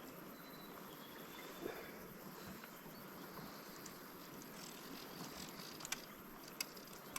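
Faint outdoor ambience: a soft steady hiss with a thin high tone that fades out about two seconds in, and a few light clicks near the end.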